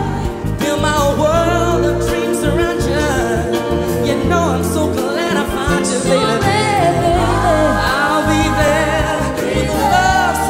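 Music: a song with a singing voice over a bass line.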